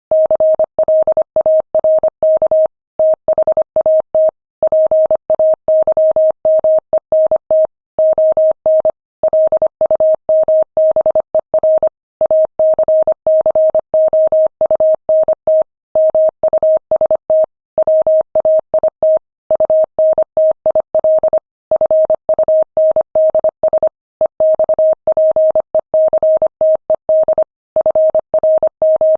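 Morse code sent at 25 words per minute: a single steady mid-pitched tone keyed rapidly on and off in dots and dashes, with short pauses between words.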